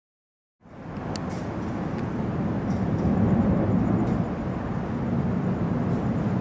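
Steady low rumbling outdoor noise with no clear pitch, starting abruptly about half a second in, with a few faint clicks on top.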